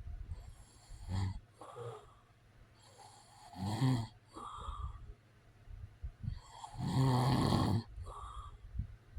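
A man snoring in his sleep: three snores about three seconds apart, the longest about seven seconds in, each followed by a softer breath.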